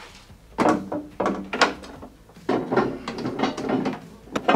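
Irregular clunks, knocks and scraping of a small two-stroke engine being lowered and shifted into a jet boat's engine bay, its metal casing bumping against the hull and mounts in several bouts.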